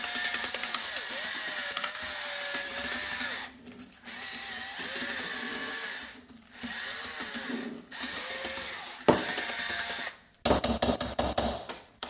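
Cordless drill driving a whisk attachment, creaming soft margarine and sugar in a stainless steel bowl; the motor whine wavers in pitch and stops briefly three times. Near the end comes a burst of rapid, loud knocking.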